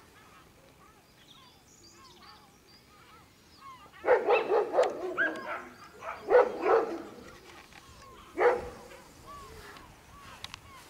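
Hunting dog barking in short bursts: a run of barks about four seconds in, two more a couple of seconds later, and a single bark near the end, with faint birdsong before them.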